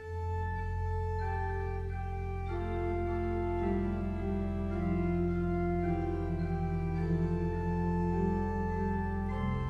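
Organ music: slow, sustained chords over a held low bass note, the upper notes changing every second or two and the bass note moving near the end.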